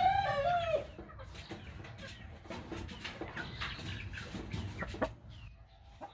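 Chickens: a loud, drawn-out call fades out in the first second, then softer clucks and a few light knocks follow.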